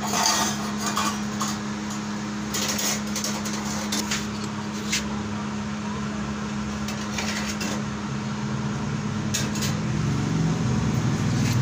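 Steady machine hum with a low tone, with a few light clicks and knocks scattered through it.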